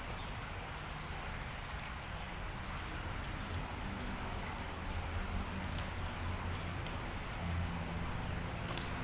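An even hiss over a steady low hum, with faint scattered crackles from a nylon cast net being handled as tilapia are picked out of it on stones.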